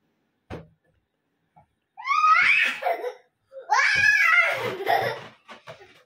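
A young girl laughing in two long, loud, high-pitched bursts, starting about two seconds in, after a short soft thump.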